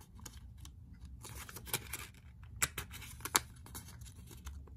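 Origami paper crinkling and crackling as fingers push in its centre and crimp it into a sink fold: a rustle about a second in, then several sharp crackles.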